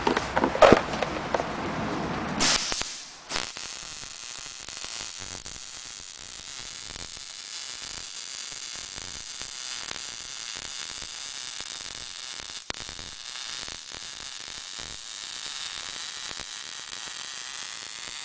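MIG welder arc, shielded with argon-CO2, burning a bead on steel with a steady crackling sizzle that starts about three seconds in, after a few louder noises.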